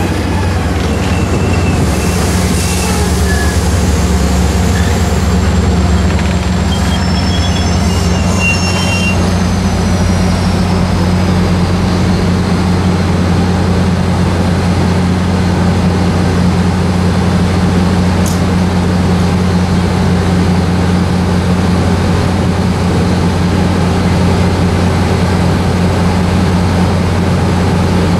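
MARC commuter train's passenger cars rolling slowly past and coming almost to a stop, over a steady low hum from the train. A few short high-pitched wheel or brake squeals sound in the first several seconds, one of them a falling whine.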